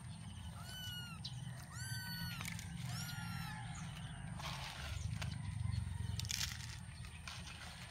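Young kitten mewing three times, high-pitched calls of about half a second each, the hungry cries of a six-week-old stray. Later come a few light clicks as dry kibble is dropped into plastic dishes.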